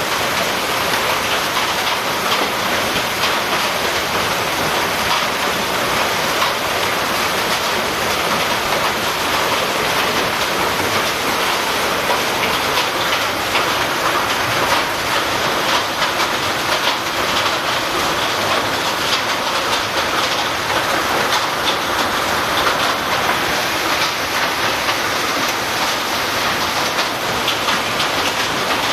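Hail and heavy rain striking corrugated roof sheets, a dense, steady clatter of countless small impacts.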